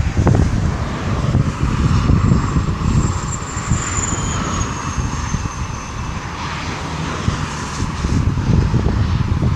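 Small portable generator's engine running steadily. Heavy rumble throughout, with a faint high whine that dips slightly about halfway through.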